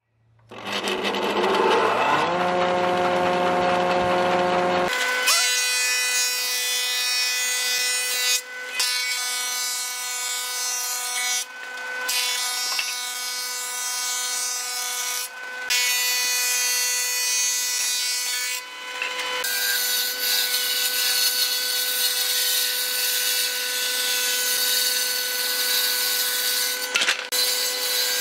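A combination woodworking machine running, planing and ripping boards. Its motor spins up with a rising whine in the first couple of seconds. After that comes a steady high whine with the rough noise of blades cutting wood, broken briefly a few times.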